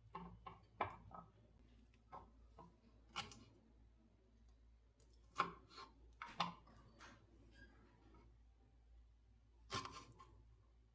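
Scattered light knocks and taps of objects being handled, at irregular intervals, with a few sharper clacks about three, five and a half and ten seconds in.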